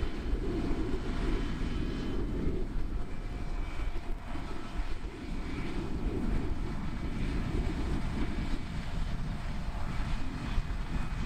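John Deere 8400R tractor's six-cylinder diesel running steadily under load as it pulls a strip-till seeder across the field, a continuous low drone.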